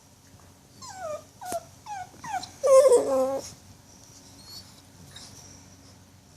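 Puppy whimpering while settling to sleep: a few short high whines that fall in pitch, then a longer, louder whine about three seconds in.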